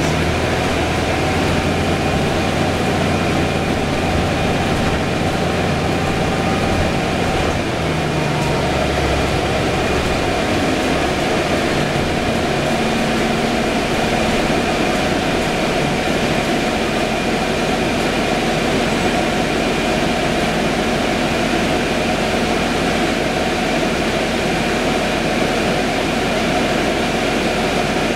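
Cabin noise of a 2011 Orion VII diesel-electric hybrid city bus under way: steady drivetrain hum with road and tyre noise and a thin, steady high whine. The low hum shifts to a slightly higher tone about ten seconds in.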